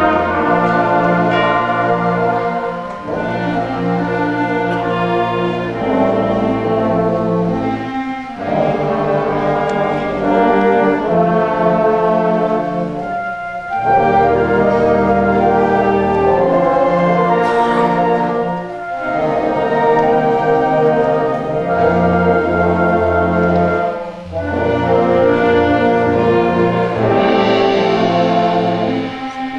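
Middle school concert band of brass, woodwinds and percussion playing sustained chords in phrases, with short breaks between phrases about every five seconds.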